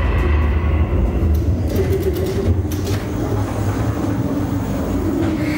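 A ride car rumbling and rattling along its track in a dark ride, with a few sharp clicks between about one and a half and three seconds in.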